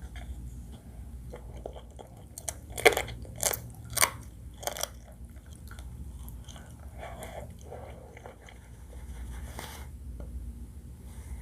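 Close-miked eating: four sharp crunching bites in quick succession about three to five seconds in, then softer chewing, with one more crunch near the end.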